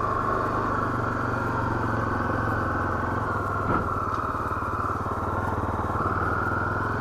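Honda XR 250 Tornado's single-cylinder four-stroke engine running steadily under way in second gear, its note rising a little near the end.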